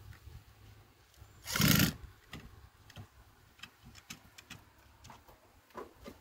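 A cordless drill driving a screw in one short burst about one and a half seconds in, followed by scattered light clicks and taps from handling the fixture against the wall.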